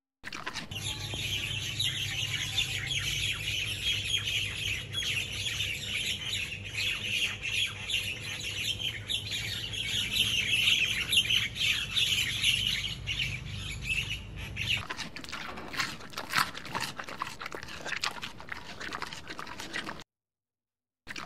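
Birds chirping and squawking in a dense, busy chorus. About fifteen seconds in it gives way to a run of quick clicks and rustles, which cuts off a second before the end.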